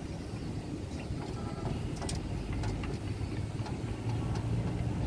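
Steady low outdoor rumble, with a few faint clicks scattered through it.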